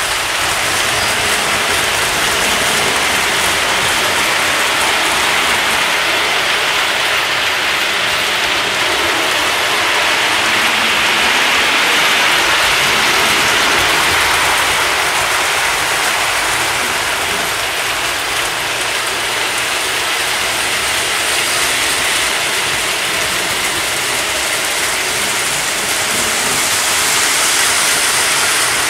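O gauge model trains running on three-rail track: a steady whir of motors and gears with metal wheels rolling on the rails. The sound swells louder about twelve seconds in and again near the end.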